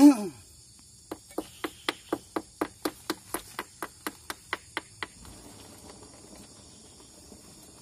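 Hydraulic bottle jack being pumped by hand under a truck's wheel hub: an even run of sharp metallic clicks, about four a second, for about four seconds, then they stop. Right at the start there is a brief, loud sound that falls in pitch.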